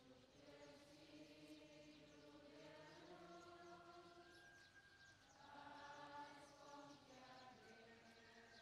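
A crowd singing a hymn together in slow, drawn-out notes, heard faintly.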